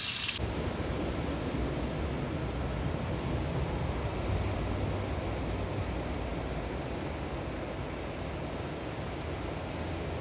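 Steady rushing of ocean surf with wind buffeting the microphone, after a brief moment of frying sizzle that cuts off shortly in.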